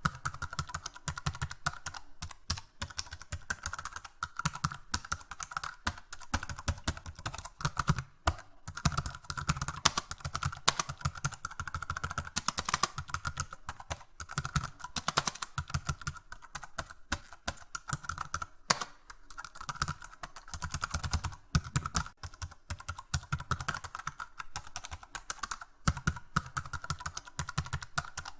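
Continuous typing on a computer keyboard: rapid, irregular key clicks, several a second, with brief pauses between runs.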